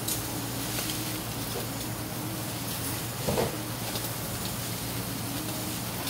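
Eel fillets sizzling and crackling on a wire grill over hot charcoal, over a steady low hum. A short louder sound about three seconds in.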